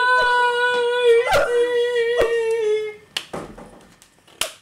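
A long, steady high note held for about three seconds, dropping slightly in pitch as it fades out, with four sharp taps or knocks over it. After it come a few short, sharp slaps.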